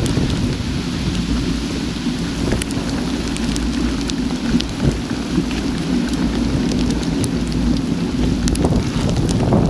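Heavy rain pelting an action camera's housing, with many sharp clicks of single drops striking it, over a steady low rumble.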